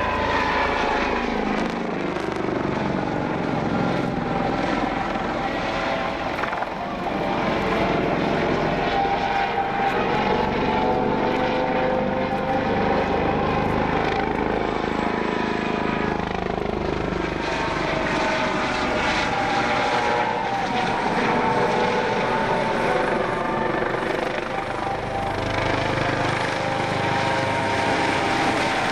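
Police helicopter flying a low display pass and manoeuvring, its engine and rotor sound steady in loudness while its pitch slides slowly up and down as it moves around.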